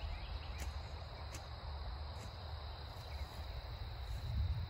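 Insects trilling steadily at a high pitch, over a low rumble.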